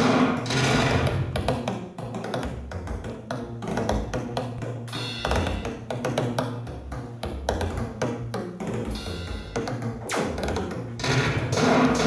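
Experimental improvised music: a dense, irregular patter of clicks and knocks over a low drone. It is busier and louder at the start, thins out after about two seconds, and swells again near the end.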